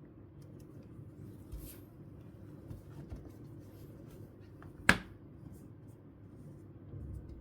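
Quiet handling of small objects, faint rustles and light ticks, with one sharp click about five seconds in.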